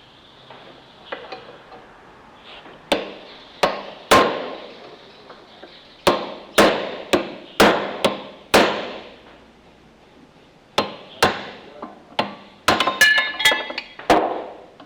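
Hammer blows on metal, driving a bearing race out of a wheel hub. Each strike rings briefly: a few blows, then a run of about two a second, then a quick flurry near the end.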